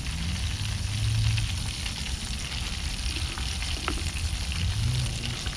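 Catfish pieces deep-frying in hot oil in a pan on a portable gas camp stove: a steady sizzle with scattered crackles, over a low rumble.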